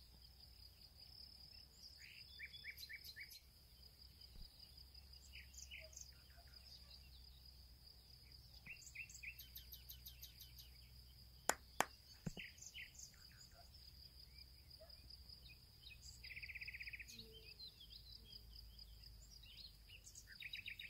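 Quiet outdoor nature ambience: a steady high insect drone with short bird chirps scattered throughout, and two sharp clicks in quick succession about halfway through.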